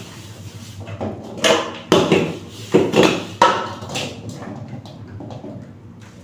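Metal cookware clattering during hand dish-washing: a wok and a steel bowl knocked and set down on a wet concrete floor, several sharp ringing clanks between about one and four seconds in, then quieter splashing as water is poured from a plastic dipper.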